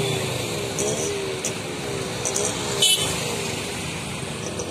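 Road traffic at a level crossing: motorcycles and cars driving past with their engines running, their pitch wavering as they pass. A brief sharp sound comes about three seconds in.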